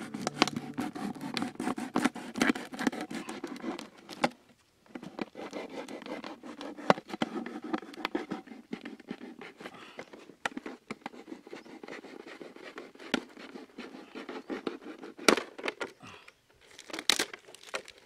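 Thin plastic bottle crinkling and crackling as a curved knife blade cuts and scrapes through it, with a short pause about four and a half seconds in and a few sharp clicks of the plastic near the end.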